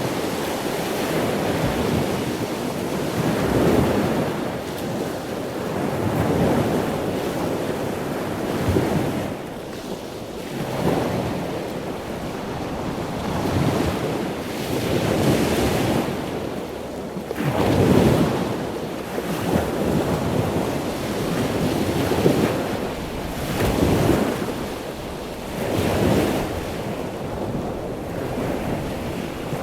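Ocean surf: waves breaking and washing in one after another, a swell of rushing noise every two to three seconds, with a few stronger breakers.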